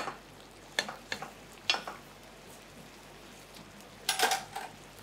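Chicken thighs simmering in a white-wine and paprika sauce in a frying pan, with a faint steady sizzle. A spoon scoops and pours sauce over the meat about once a second, giving three sharp clinks and splashes in the first two seconds. A louder clatter comes about four seconds in.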